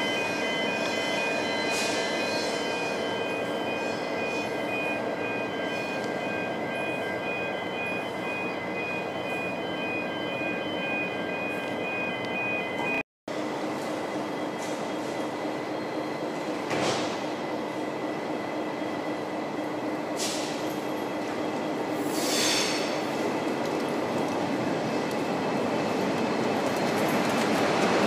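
V/Line N class diesel-electric locomotives: the steady rumble of an idling locomotive's EMD V12 two-stroke diesel, then a second N class running light through the station toward the listener, growing louder near the end.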